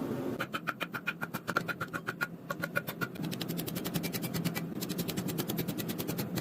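Machine hammering on steel: fast, even blows at about ten a second over a steady motor hum, easing off after about three seconds.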